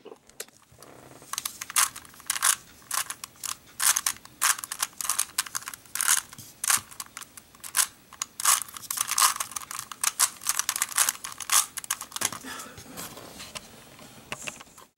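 Rubik's Cube being turned by hand: a quick, irregular run of plastic clicks and clacks as its layers snap through a sequence of moves.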